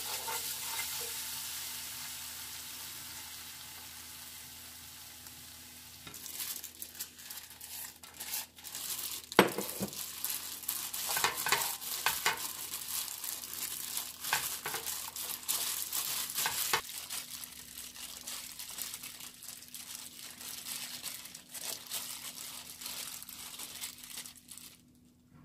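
Red pepper seasoning sauce sizzling in a non-stick frying pan, fading away over the first few seconds. Then a hand in a plastic glove tosses shredded dried squid through the sauce in the pan: irregular crinkling and rustling, with one louder knock about nine seconds in.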